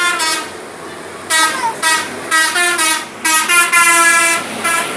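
Bus 'telolet' horn, a multi-tone musical air horn, sounding a tune in a string of blasts: one ending in a drop in pitch, then several short toots, a longer blast and a final short toot.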